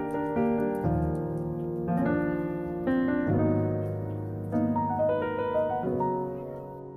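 Background piano music, with notes and chords changing about once a second.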